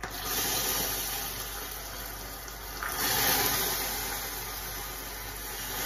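Water poured a little at a time into hot caramelised sugar in an aluminium pan, which hisses and bubbles up hard as it hits, with a second, louder surge about three seconds in. This is the second portion of water going into the finished caramel to loosen it into a syrup.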